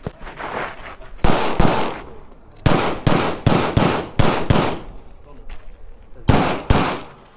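A 9mm CZ Shadow 2 pistol fired in IPSC double-taps: ten shots in five quick pairs, each pair about a third of a second apart, with pauses between the pairs.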